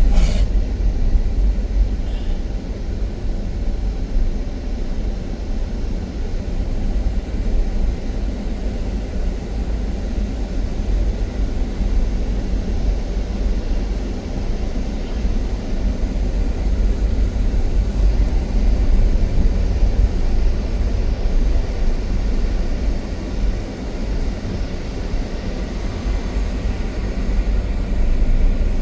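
Steady low rumble of a car on the move: engine and road noise with no breaks or changes.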